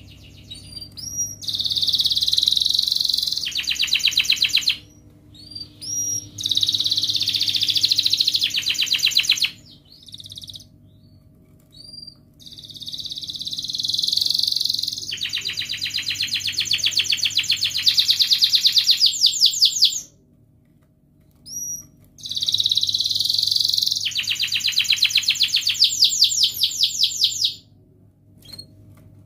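Domestic canary singing in four long phrases. Each phrase mixes sweet chirps with a fast rattling roll of rapidly repeated notes, and short rising 'cuit' chirps come between phrases.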